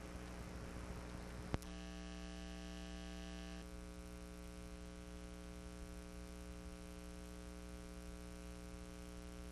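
Faint steady electrical hum with hiss, a single click about one and a half seconds in, and a higher-pitched part of the hum that cuts off suddenly a little later.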